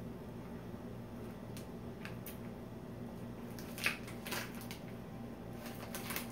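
Plastic snack bag crinkling in the hands in a few short, faint rustles, the loudest about four seconds in, over a steady low hum.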